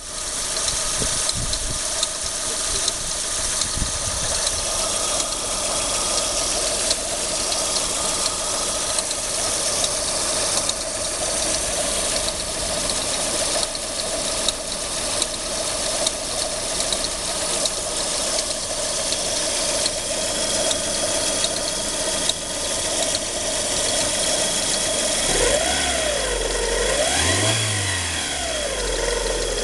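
Lada Priora engine running with a steady whistle and fast clicking from its newly fitted Gates timing-belt tensioner roller, noises that were not there with the original kit. The engine is revved up and back down near the end.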